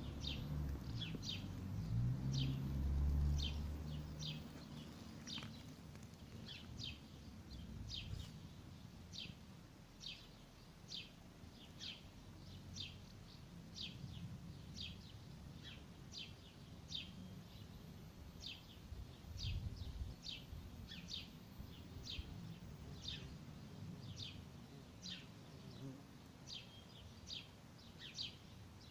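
Short, high chirps repeated steadily about twice a second from a small animal, with a low rumble in the first few seconds.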